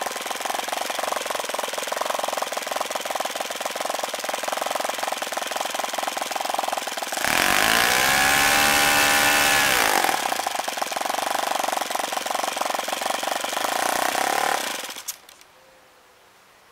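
Single-cylinder OS FS-40 four-stroke glow model engine running at full throttle, driving a 12x6 propeller at about 9,200 RPM. It gets louder for about three seconds in the middle, with a sweeping change in tone. About fifteen seconds in, the engine shuts off and falls quiet.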